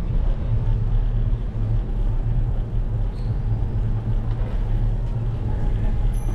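Steady low rumble of wind buffeting the microphone of a bike-mounted GoPro HERO 12, with road and tyre noise, while riding along.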